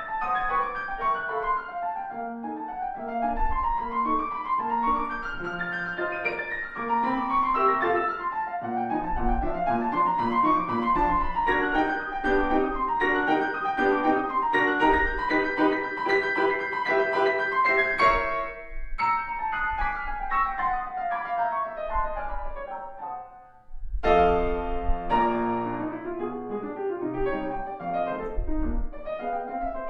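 Longato grand piano played solo in classical style, with fast runs rising and falling. A long descending run fades to a brief pause about three-quarters of the way through, then loud chords come in.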